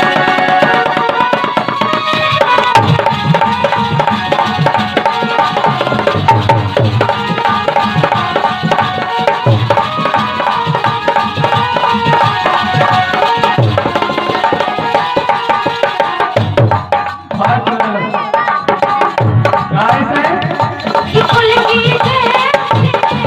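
Instrumental folk music: a steady hand-drum beat under a sustained melodic line, with a brief break in the drumming about three-quarters of the way through.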